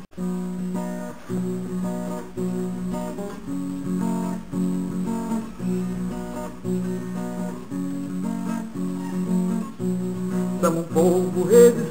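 Acoustic guitar strumming steady, evenly repeating chords as a song's introduction. Near the end a singing voice comes in over the guitar.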